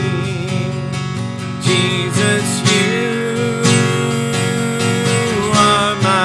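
Acoustic guitar strummed in slow, steady chords, about one strum a second, with a man's voice holding one long sung note in the middle.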